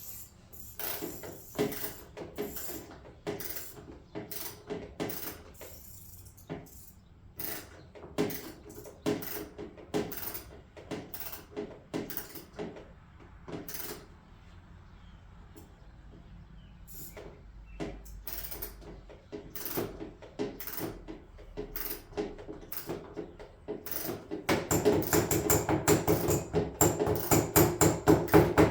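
Hand ratchet wrench clicking in short runs as rusty bolts are worked loose, then a fast, continuous run of clicks near the end, the loudest part.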